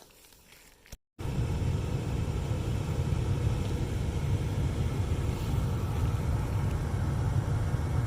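Newly replaced rear blower motor of an Acura MDX running, pushing air with a steady rush and low rumble that starts about a second in. There is no whine: the fan runs nice and quiet.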